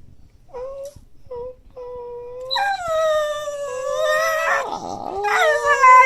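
A dog's drawn-out vocal yawn. It starts with a few short whines, then from about two and a half seconds in gives a long wavering, howl-like whine that sags in pitch, breaks briefly and rises again.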